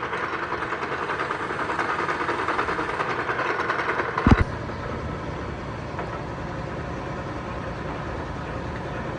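Milling machine drilling the hole for 1/2-13 threads in a metal wheel hub, the cut running with an even, rapid rhythm. A little after four seconds there is one sharp, loud clunk, after which the spindle runs on more quietly without cutting.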